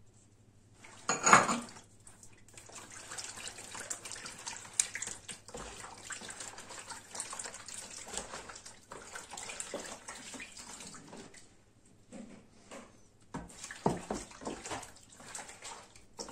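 A hand mixing a runny batter of egg yolks, milk and melted butter in a plastic bowl: irregular sloshing and squelching of the liquid, with a lull shortly before the end. A loud knock about a second in.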